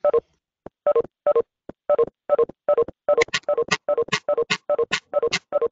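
A rapid string of short, identical electronic notification chimes from a video call, one after another, coming faster and brighter after about three seconds. They come as many participants post in the chat or leave the meeting at once.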